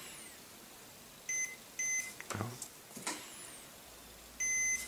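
Multimeter continuity tester beeping as its probe touches the contacts of a freshly crimped ribbon-cable connector: two short beeps about a second and a half in, a soft tap, then a longer beep near the end, each confirming that the connection is good.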